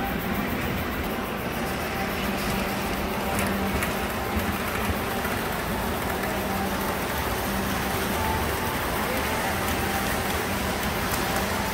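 Model trains running on a large miniature railroad layout: a steady rumble of wheels on track under a low motor hum that swells and fades every second or two.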